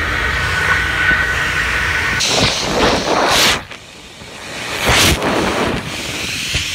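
OpticWash cleaning machine running its wash cycle, heard from inside the chamber: a loud steady hiss of its spray jets with a faint high whine. The hiss surges twice with a sweeping sound, drops suddenly to a lull about three and a half seconds in, then builds back up.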